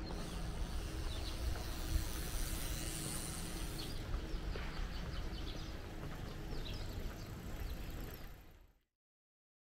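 Outdoor street ambience: a steady low rumble with birds chirping now and then. It fades out to silence near the end.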